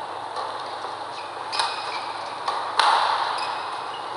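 Rackets striking a shuttlecock in a badminton doubles rally: several sharp hits, the loudest near three seconds in, with short high squeaks of court shoes on the mat between them.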